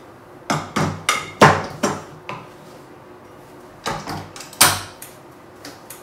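Sharp knocks and clatters of a spatula and a glass mixing bowl, about six in the first two seconds. About two-thirds of the way in come three more knocks as the bowl is seated on a stand mixer and the mixer's tilt head is lowered, ending in a loud clunk.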